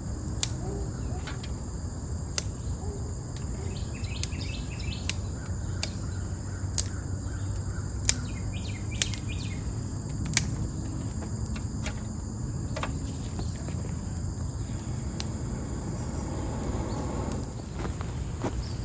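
Crickets chirring steadily, with sharp snaps about once a second through the first half and only a few after that.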